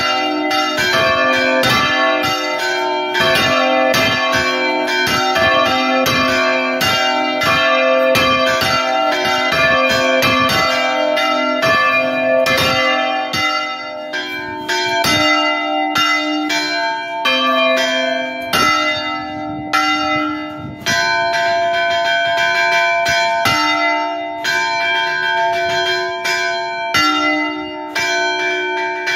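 Several church bells of different pitches rung by hand from ropes in the belfry, their clappers striking in a busy peal that calls the faithful to mid-morning mass. The strokes come thick and fast for about the first half, then thin out to a slower, sparser pattern with longer ringing between strikes.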